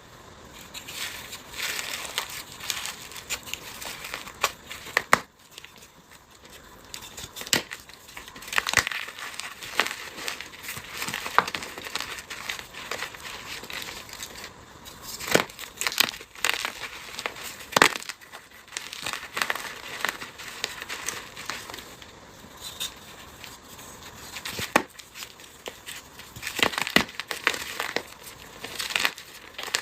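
Brittle, dry material such as soap, starch, clay or gym chalk being crushed by hand. It gives irregular crunching with several sharp, louder snaps scattered through.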